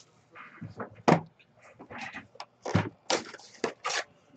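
Hands opening a trading-card hobby box: cardboard and wrapper rustling, scraping and tapping in short, irregular bursts.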